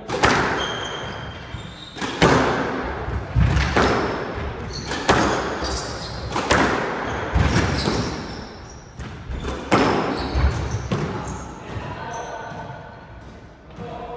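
Squash rally: the ball cracks sharply off rackets and the court walls about every second or so, each hit echoing in the enclosed court. The hits stop near the end as the rally finishes.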